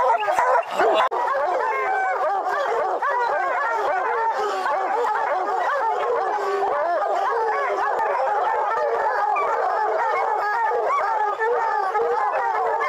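A pack of coonhounds baying together at a treed bear: many dogs calling at once in overlapping bawls and barks that never let up.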